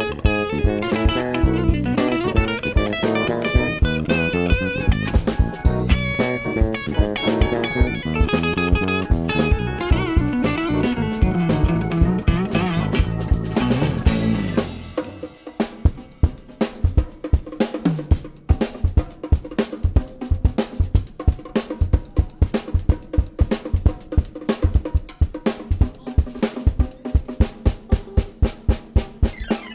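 A jazz-funk band playing live, with electric guitar, bass and drum kit. About halfway through, the other instruments drop away and a drum break carries on alone, a fast, even pattern of snare and bass-drum hits.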